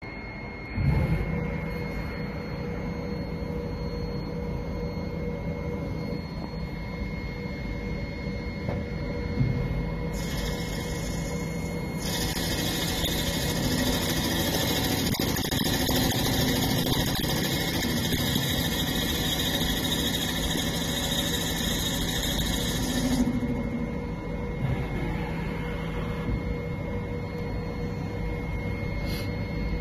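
Mini CNC lathe running: the spindle starts about a second in and the machine hums steadily with a high whine. From about ten seconds in until about twenty-three seconds a hiss is added as the gang-mounted tool cuts the part.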